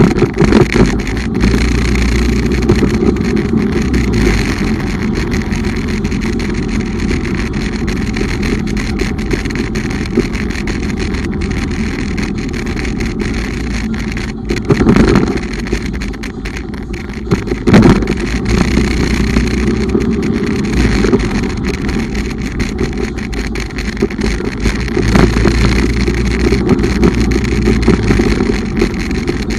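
BUMOTO Regnum motorcycle being ridden: steady engine and road noise, with two brief louder bursts about halfway through.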